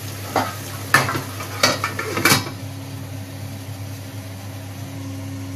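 Metal pan and lid clinking as the pan is covered, four sharp knocks in the first two and a half seconds, then a steady low hum.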